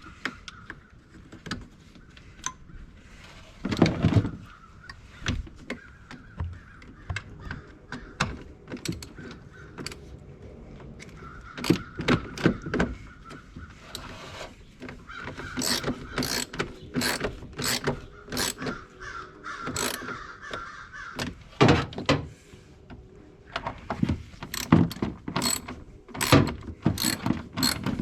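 Ratchet and socket clicking in quick runs as bolts are driven, with a few louder knocks of tools or parts in between.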